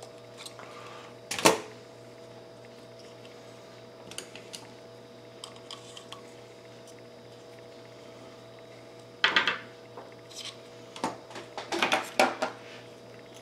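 A spring-loaded desoldering pump snaps once, loud and sharp, drawing molten solder off a circuit-board terminal. Later comes a run of light clicks and clattering knocks as the board and tools are handled, over a steady faint hum.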